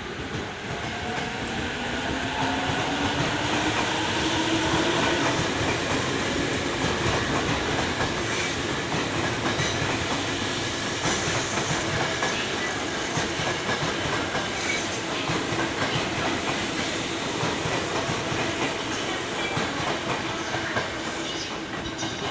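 Electric commuter train moving along the platform, its motors giving a gliding whine near the start as it gets under way, over a steady rumble and clatter of wheels on the rails.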